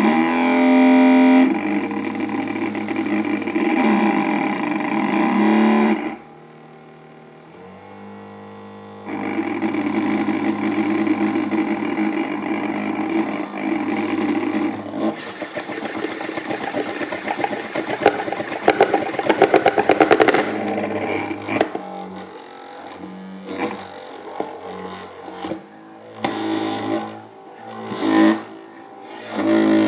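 Euler's disk buzzing loudly on a running magnetic stirrer, driven by the stirrer's magnetic field. The pitch and loudness change abruptly several times as the disk sits in different orientations, with a quieter stretch about six to nine seconds in. After about twenty-one seconds the sound becomes choppier and softer.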